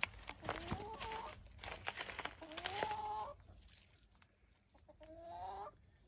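Domestic hen calling three times, each call a drawn-out note that rises slightly in pitch.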